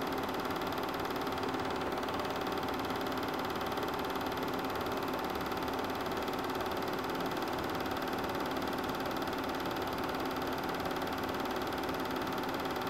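Super 8 film projector running steadily: a constant motor hum with a fine mechanical whirr from the film transport.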